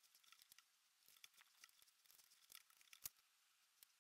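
Near silence with scattered faint clicks and taps as chips are pressed into their sockets on a Macintosh Classic II logic board, with one sharper click about three seconds in.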